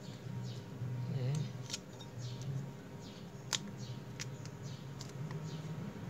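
Small clicks and scrapes of a laptop hard drive in its metal bracket being handled and lifted out of its bay, with a sharper click about three and a half seconds in.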